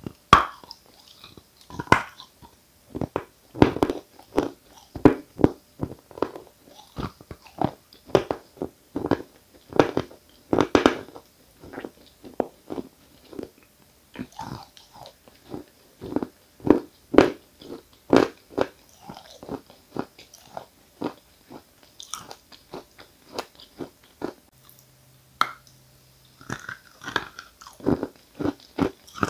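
Close-up crunching as a person bites and chews a piece of dry 'Giant' (Исполин) eating chalk. The short, irregular crunches come several a second, with a brief lull a little before the end.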